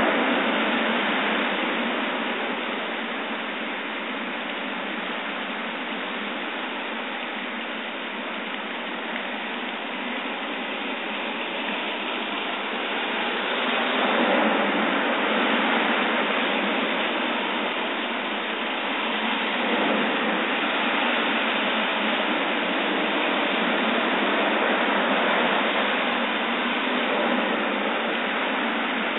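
Heavy rain pouring steadily, with cars driving through deep standing water on the road, their tyres sending up sheets of spray. The rushing noise swells as each car passes, most clearly about halfway through.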